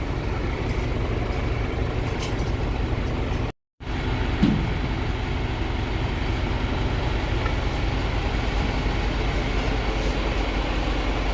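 Farm tractor engine running steadily at a constant speed. The sound cuts out for a moment about three and a half seconds in.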